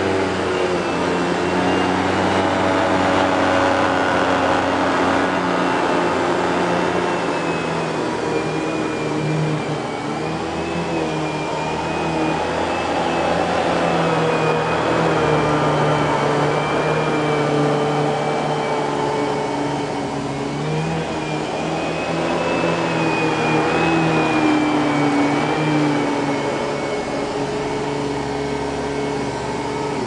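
2000 Kenmore Progressive canister vacuum with its Panasonic-built motor running at full power, its power nozzle worked back and forth over carpet. A steady whine and rush of air with several tones that waver slightly in pitch.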